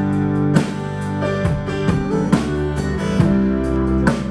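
Several acoustic guitars strumming chords together in a live band, with a strum about every second and low notes sounding underneath from about a second and a half in.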